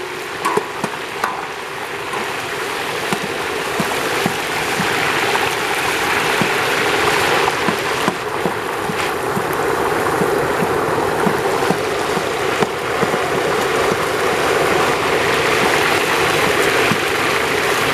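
Pork pieces frying in a large metal cazo of hot lard for carnitas: a steady, dense bubbling sizzle, with the long paddle stirring through it and a few short knocks against the pot.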